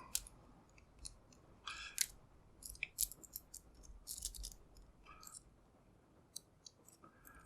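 Faint metallic clicking and scraping of a city rake pick worked back and forth in the keyway of a cheap padlock, in irregular clusters that thin out near the end. The lock resists the rake and does not open.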